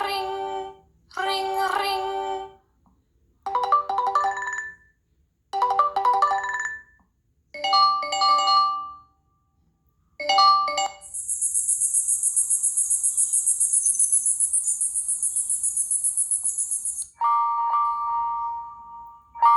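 Google Pixel 3a preloaded ringtones playing one after another: a melodic chime phrase repeating about every two seconds, then a rapid, high, buzzing trill lasting about six seconds, then a steady two-note electronic tone starting near the end.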